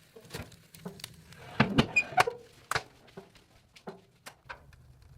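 Irregular knocks and clicks of things being handled, busiest about one and a half to three seconds in, over a faint low hum.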